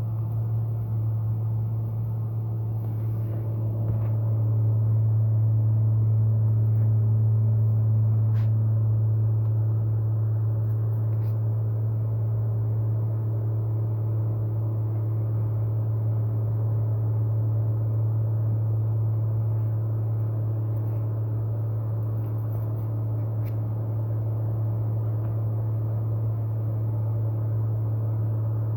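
Corn harvester running steadily: a loud, even low drone with a few faint ticks over it.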